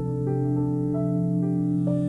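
Calm ambient background music: slow sustained notes, a new one about every half second, over a steady low drone.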